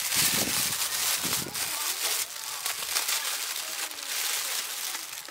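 Thin plastic shopping bag crinkling and rustling as hands open it and pull it back from a boxed lunch, loudest in the first couple of seconds.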